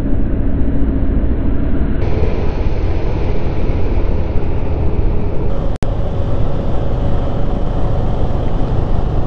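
Heavy wind rush over the microphone of a two-wheeler moving at highway speed, with a steady engine drone beneath. The sound cuts out for an instant about six seconds in.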